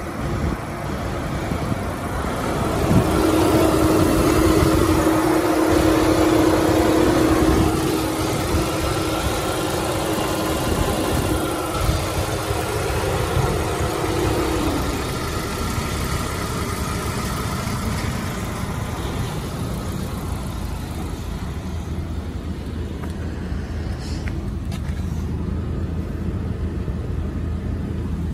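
Saab B235R 2.3-litre turbocharged four-cylinder engine running at idle, steady throughout. A steady tone sits over it from a few seconds in and cuts off about halfway through.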